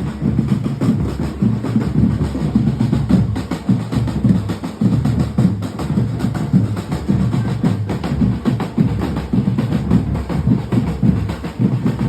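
Music dominated by dense, continuous low drumming.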